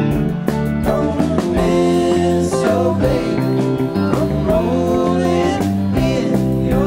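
Live rock band playing, with electric guitars, bass, keyboards and drums. Several voices sing together in harmony.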